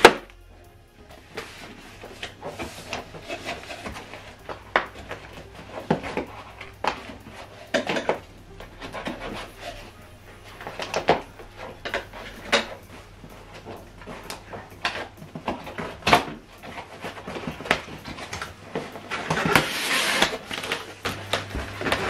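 Cardboard box and packaging being handled during an unboxing: scattered, irregular knocks and light rustles, with a louder stretch of cardboard rustling and scraping near the end.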